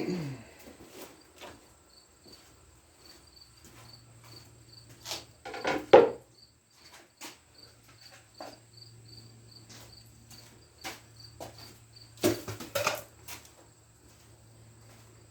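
Intermittent knocks and clatters of objects being handled and set down, loudest about five seconds in and again near the end. A faint high chirp repeats evenly about three times a second behind them.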